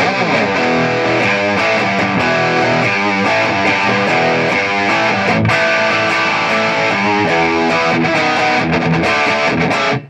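Electric guitar, a Gibson Les Paul Traditional Pro played through a Mesa/Boogie Triaxis preamp, 20/20 power amp and Rectifier cabinet, playing a run of chords and single notes that ring into each other, with a lightly distorted tone.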